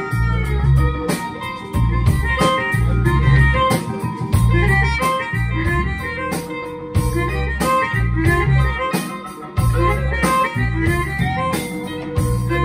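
A live blues band jamming: harmonica holding long notes over vibraphone, electric guitar, upright bass, a drum kit and hand drums, with a steady low beat.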